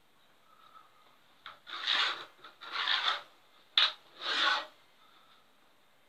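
Pen and brass straightedge rubbing and scraping on a plywood board in three strokes of about half a second each, with one sharp tap shortly before the last stroke.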